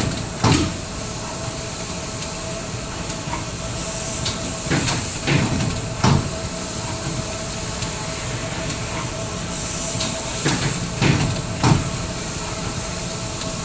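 Solar cell welding machine running steadily, with a hiss that swells and fades about every five seconds and short clunks in between, like a machine working through its cycles.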